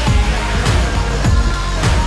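Background pop music with a steady beat, a kick drum roughly every 0.6 seconds.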